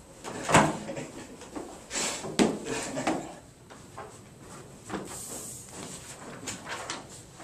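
A string of irregular knocks and clunks, the loudest about half a second in, with a brief hiss around five seconds in.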